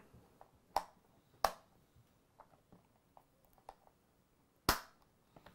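Snap-on lid of a small clear plastic spiderling enclosure being pressed into place by hand: three sharp plastic clicks, the last and loudest near the end, with faint taps and ticks between.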